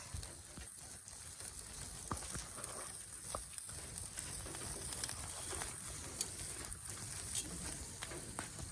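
Wood campfire burning, with faint scattered crackles and ticks over a steady low hiss.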